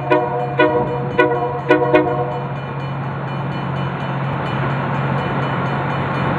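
Horn of a LORAM rail grinder sounding about five short blasts in the first two seconds, then the machine's steady engine hum and running noise as it approaches.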